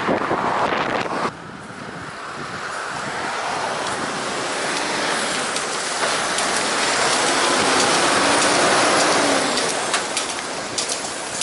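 Wind buffeting a bicycle-mounted camera's microphone, cut off abruptly about a second in. Then a heavy tipper truck overtakes close alongside the bike: its engine and tyre noise build steadily, are loudest shortly before the end and ease slightly.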